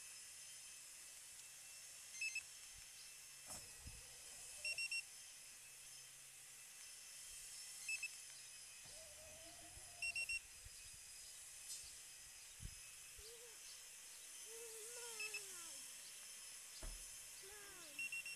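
Car alarm system giving short high electronic beeps in quick groups of one to three, repeated about half a dozen times as commands are sent from its key fob. A faint low hum runs underneath.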